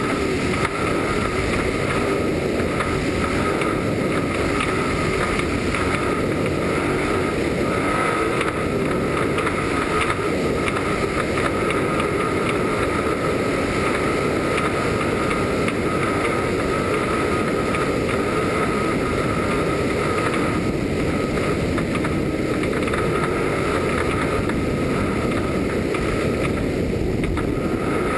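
Desert trophy truck running at speed on a dirt road, heard from its hood: a steady mix of engine, drivetrain and road noise with wind rushing over the microphone.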